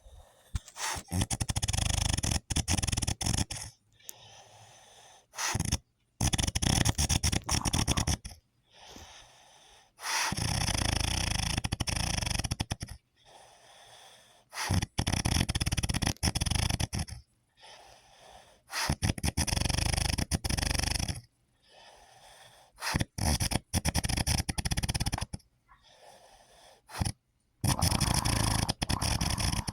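A person snoring loudly, one long rasping snore about every four seconds with quieter breathing between.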